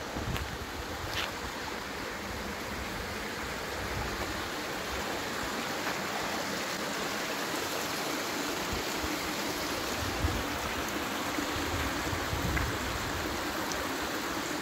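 Mountain stream rushing steadily: an even wash of flowing water.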